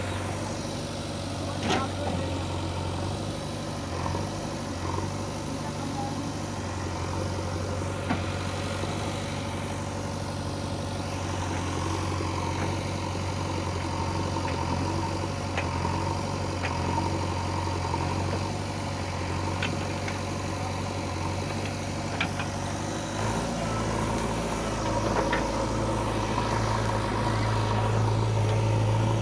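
Diesel engine of a JCB 3DX backhoe loader running steadily, with a few light knocks. About three-quarters of the way through, its note shifts and grows a little louder.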